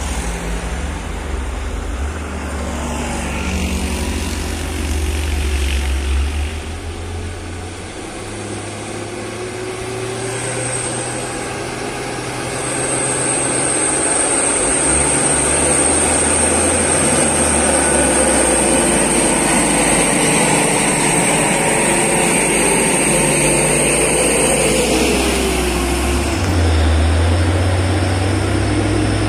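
Diesel engines of heavily loaded Hino 500 trucks labouring up a grade in low gear, a deep steady drone that grows louder from about halfway through as the lead truck comes close. A steady high-pitched whine runs through the middle, and near the end an engine's pitch drops.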